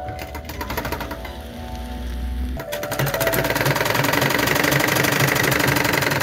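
Motor-driven domestic sewing machine stitching through folded cloth and foam, a fast run of needle strokes. It runs moderately at first and then faster and louder from about two and a half seconds in.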